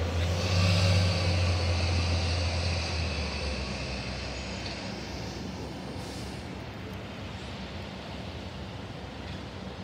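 2003 New Flyer C40LFR natural-gas transit bus driving past and away: a low engine drone with a high whine, loudest about a second in, then fading steadily as the bus moves off.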